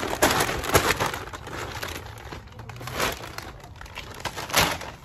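Large brown kraft-paper bag crinkling and rustling as it is shaken open and handled, with sharper crackles in the first second and again about three and four and a half seconds in.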